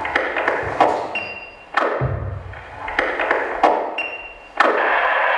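Sparse percussive music for a dance piece: sharp, ringing hits every second or so, a few followed by brief high pings. About four and a half seconds in, a steady loud hiss-like noise sets in.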